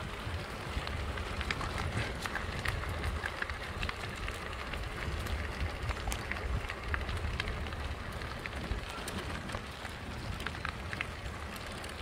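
Fat tyres of a recumbent trike rolling over a rough blacktop trail: a steady low rumble with a constant fine crunch and scattered small ticks from grit under the wheels.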